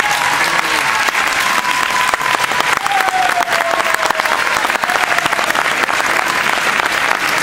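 Spectators applauding steadily, with a voice calling out a held, falling shout about three seconds in.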